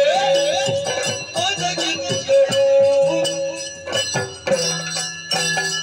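Yakshagana ensemble music: a singer's ornamented melodic line over repeated hand-drum strokes, with small metal cymbals ringing in time.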